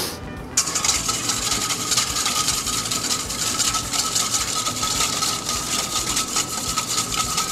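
Wire whisk beating oil into a honey mustard vinaigrette in a stainless steel bowl: fast, continuous scraping strokes that start about half a second in. The bowl is not steadied and dances on the table as it is whisked.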